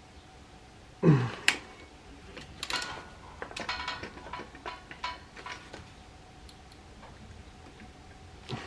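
Hand tools on a seized motorcycle exhaust stud: a loud clank about a second in, then a run of scattered metallic clicks and clinks as a socket is worked on the stud.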